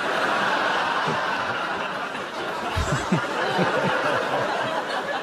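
Studio audience laughing, a dense, steady wave of laughter from many people, with a man's low chuckle standing out about three seconds in.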